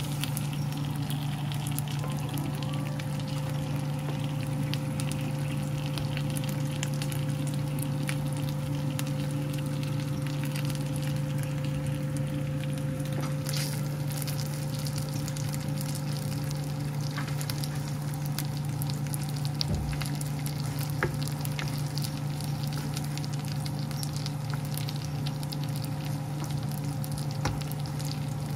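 Chicken pieces frying in a nonstick pan: a steady sizzle with fine crackling pops throughout, over a steady low hum.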